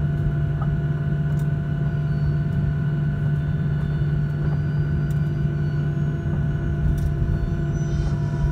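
Jet airliner taxiing, heard from inside the cabin: a steady low engine hum and rumble with a constant drone, and a few faint ticks.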